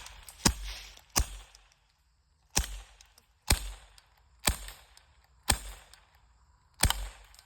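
High-powered BB gun fired seven times in quick succession, each shot a sharp crack, mostly about a second apart.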